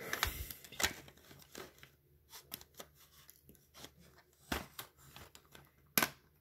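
Plastic cassette cases handled and shuffled: scattered light clicks and rustles, with a couple of sharper clicks about six seconds in.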